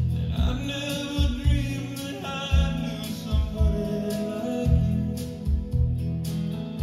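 A song with a singer, played back from cassette on an Akai GX-Z7100 stereo cassette deck.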